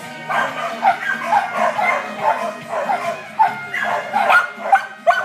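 A small dog barking and yipping repeatedly in quick, high-pitched barks, about two or three a second.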